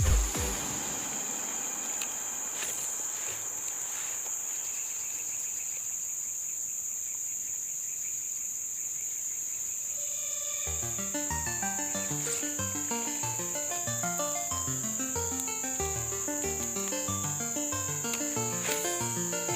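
Steady, high-pitched chorus of insects, with background music of short melodic notes coming in about halfway.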